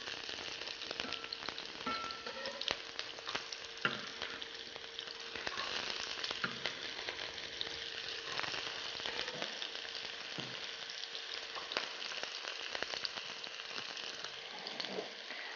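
Diced onion sizzling in a little sunflower oil in a pot, a steady hiss with small crackles throughout: the onion being sautéed.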